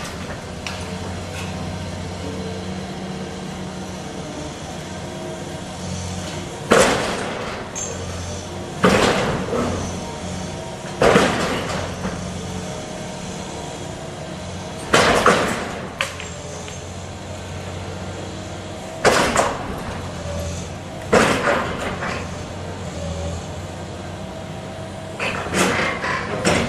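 Demolition machine's engine running steadily under about seven loud crashes of breaking and falling rubble, spread a few seconds apart.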